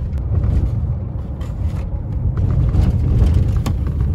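Road and engine noise heard inside a moving car's cabin: a steady low rumble, with a few light clicks and rustles in the second half.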